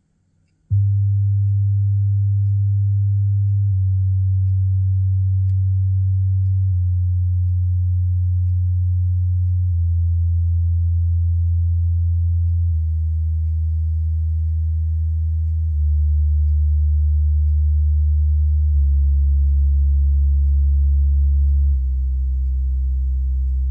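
Built-in subwoofer of a TCL 65Q8C television playing steady low test tones that step down in pitch about every three seconds, with a faint buzz riding on them. The buzz is a rattle in one of the woofers, which shows even at a moderate volume of 10 out of 100.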